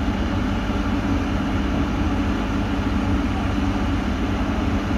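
Komatsu PC210 excavator's diesel engine idling steadily, a constant low hum with no revving.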